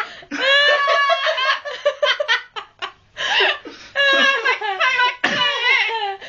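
Amazon parrot imitating human laughter, in three runs of laugh-like calls separated by short pauses.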